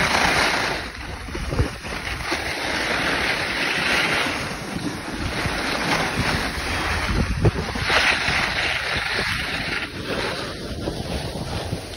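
Wind buffeting the microphone while riding downhill, with the hiss of snowboard or ski edges scraping over packed snow that swells every few seconds as the rider turns.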